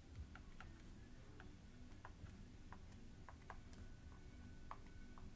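Near silence: quiet room tone with faint, irregular light ticks, several a second.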